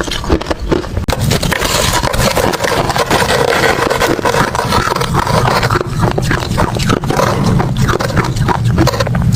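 Hard ice being bitten and chewed, a dense, unbroken run of crackling crunches.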